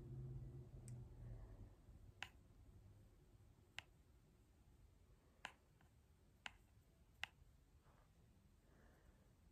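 Near silence: faint room tone with a low hum that fades out over the first two seconds, and five faint, sharp clicks scattered through the middle.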